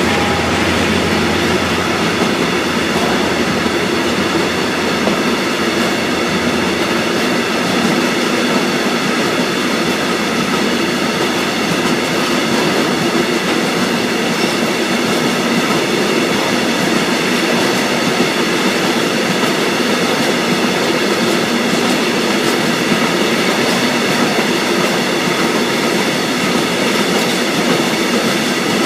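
Freight train wagons rolling steadily past at speed, their wheels running over the rails with a continuous loud rumble and clatter.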